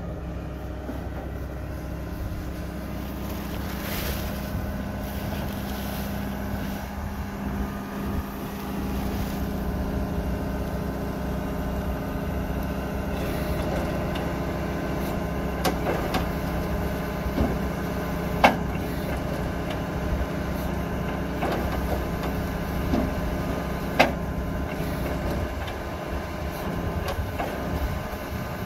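Tractor engine running steadily while driving a CompactTree Christmas tree packing machine, with a few sharp knocks from the machinery, the loudest about two-thirds of the way in and again near the end.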